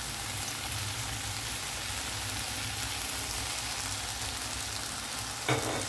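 Sliced vegetables frying in oil in a stainless steel kadai on high flame, a steady sizzling hiss. A short louder noise comes near the end.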